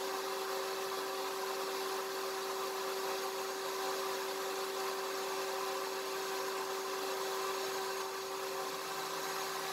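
Steady low hum with one constant tone over a faint hiss: background room tone.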